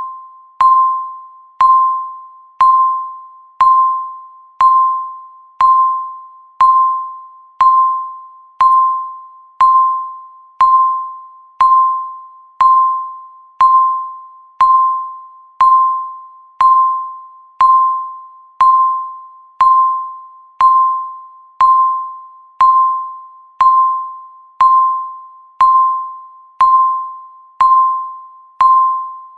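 Countdown timer beeping once every second: a single mid-pitched electronic beep, each one starting sharply and fading away before the next, marking each second left on the timer.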